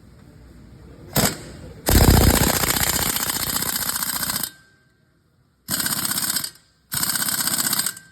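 Impact wrench hammering on a wheel nut in three bursts of rapid rattling, the first and longest about two seconds in, after a brief blip, then two shorter bursts near the end.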